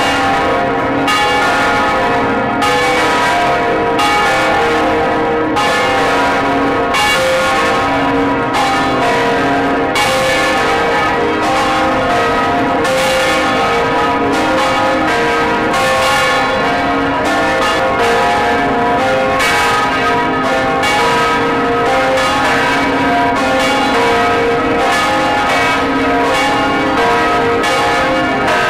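Several large church bells swinging and ringing together, heard close up inside the belfry: the clapper strokes come about once a second in an uneven, overlapping pattern, each ringing on into the next. They are rung as a funeral toll.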